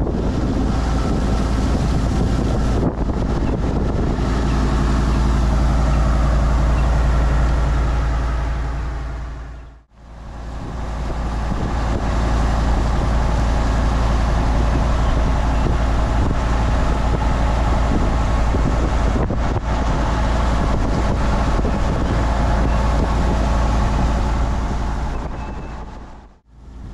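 A riverboat's engine drones steadily under way, over a steady rush of wind and water past the hull. The sound fades out and back in at about ten seconds in and again near the end.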